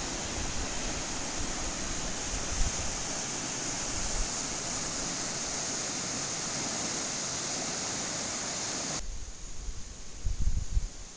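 Steady rushing of river water pouring through a concrete intake dam. It cuts off suddenly about nine seconds in, leaving uneven wind buffeting on the microphone.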